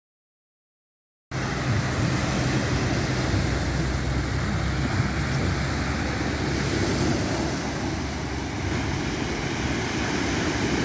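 Silence for about a second, then a steady noise of sea surf breaking on a pebble shore, mixed with wind on the microphone that adds a heavy low rumble.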